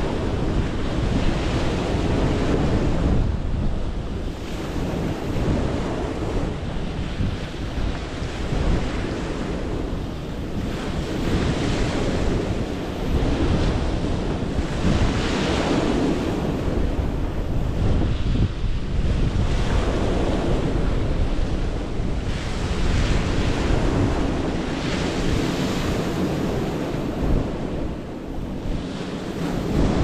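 Small waves breaking and washing up over a pebble-and-boulder shore, swelling in surges every few seconds, with wind gusting over the microphone as a steady low rumble underneath.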